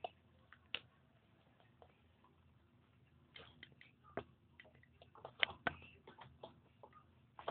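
Irregular light clicks and taps of a small pet's teeth and nose against a plastic bottle, thickest and sharpest in the second half.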